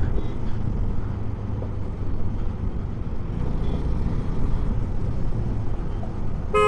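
Husqvarna motorcycle cruising in traffic: a steady, low engine rumble mixed with wind and road noise.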